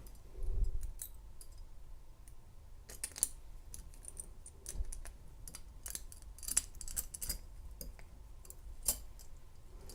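Faint, irregular metallic clicks and ticks of a bent key-ring wire being worked inside a handcuff lock to pick it, with a soft bump about half a second in.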